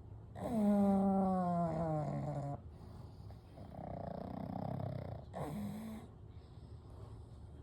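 Sleeping pugs snoring through their short, flat-nosed airways: a long pitched snore about half a second in that slowly falls in pitch over about two seconds, a rougher breathing snore around four seconds, and a short pitched snore near six seconds.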